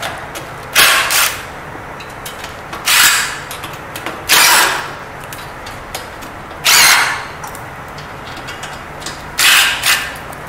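Cordless driver spinning in five short bursts, about two seconds apart, as it loosens the leg nuts on a lift's caster leg.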